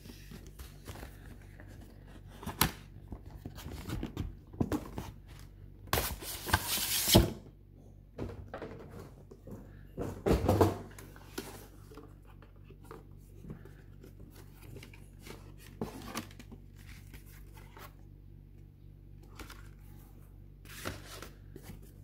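Cardboard graphics-card box being handled and opened: taps, clicks and rubs of hands on the packaging. There is a longer noisy rub about six seconds in and a thump at about ten and a half seconds.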